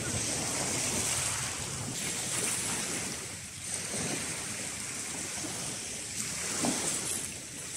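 Small waves breaking and washing over a shingle beach: a steady wash of surf that swells and ebbs.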